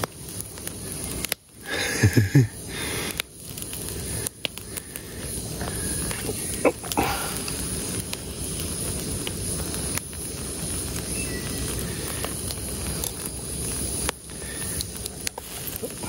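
Small wood campfire burning with a steady hiss and scattered crackles under a metal spit of chicken being turned; a short, louder creak about two seconds in and a brief squeak a few seconds later.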